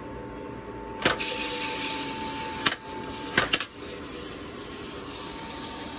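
ROEST sample roaster being charged with green coffee beans. About a second in, a sharp click as the charge gate opens, and a steady hiss begins and runs on. A few more clicks of the gate lever come near the middle, and a faint steady tone stops about halfway.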